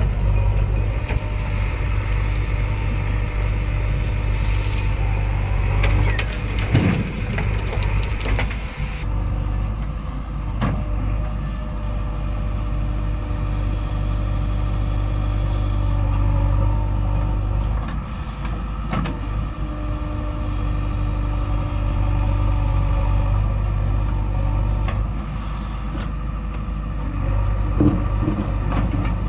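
JCB 3DX backhoe loader's diesel engine running steadily as the backhoe digs earth, with a few short knocks of the bucket against soil and stones.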